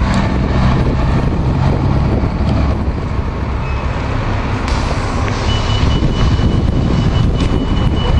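City transit bus engine running with a low hum that fades after about two and a half seconds into a general vehicle rumble. A thin, steady high tone comes in about halfway through and holds to the end.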